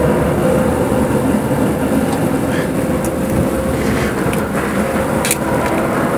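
Steady noise of road traffic going by, with a few faint small clicks.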